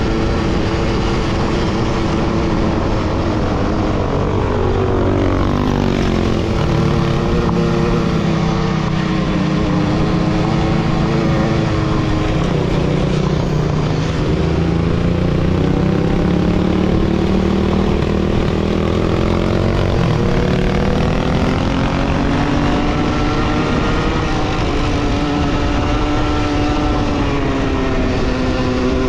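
A motor vehicle's engine running steadily; its pitch drops about five seconds in, stays low for a while, then climbs again a little past twenty seconds.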